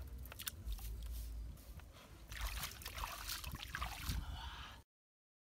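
Hands working wet mud with a few soft clicks and pats, then splashing and sloshing in shallow muddy stream water around a woven bamboo basket trap for about two seconds; the sound cuts off abruptly just before the end.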